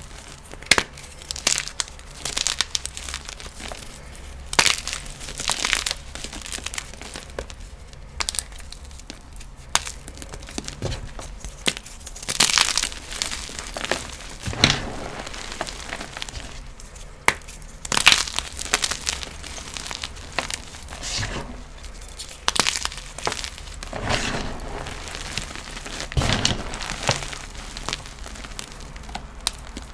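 Blocks of gym chalk being crushed, crunching and crumbling into powder in irregular bursts, some sharper cracks among softer crumbling.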